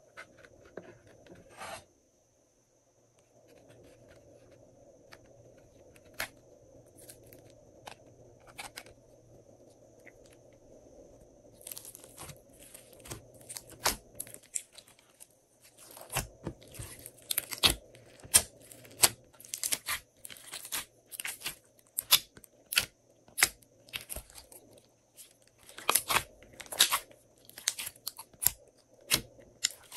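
Glossy slime being worked by hand, giving sharp sticky clicks and pops. They are sparse at first, then come thick and fast from a little past halfway.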